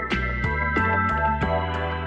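Background music: sustained keyboard chords over a steady, regular beat.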